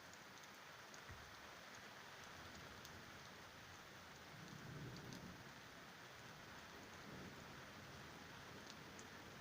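Faint steady rain falling, with scattered drips, and a low rumble of distant thunder swelling and fading about halfway through.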